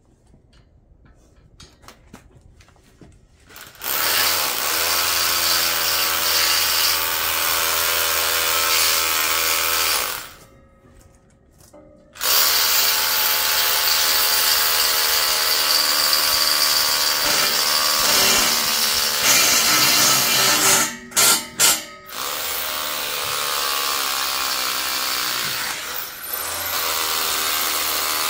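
Cordless drill running into concrete at the base plate of a metal railing post. It makes one long run of about six seconds, stops for about two seconds, then runs again for about fifteen seconds, with a few quick stop-starts partway through.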